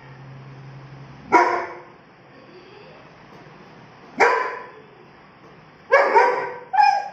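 German shepherd barking: single loud barks a few seconds apart, then a quicker run of barks near the end.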